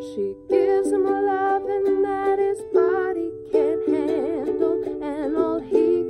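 Ukulele strummed in chords, with a woman's voice singing a melody with vibrato over it from about half a second in.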